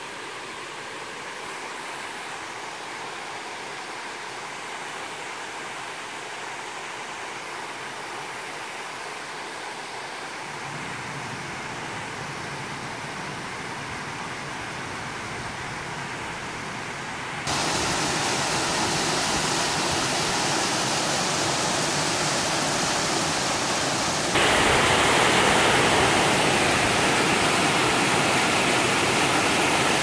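Waterfall and creek water rushing over layered rock ledges, a steady hiss. It gets abruptly louder a little past halfway and again near the end, as closer, bigger cascades come in.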